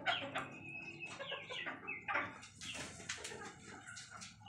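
Cochin bantam chickens clucking, with several short calls that slide down in pitch in the first two seconds.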